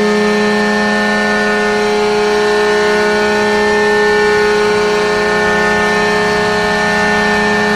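Atlanta Thrashers hockey goal horn: an arena air horn sounding one long, steady blast of several tones together over a strong low note, cutting off right at the end.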